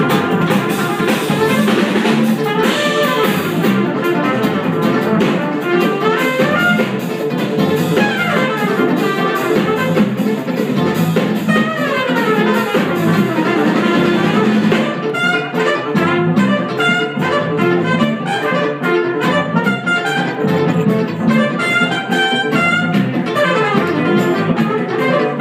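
Live jazz-fusion band playing: trumpets and saxophone over electric guitars, keyboards and drum kit. Several notes slide downward midway, and the drums hit more sharply in the second half.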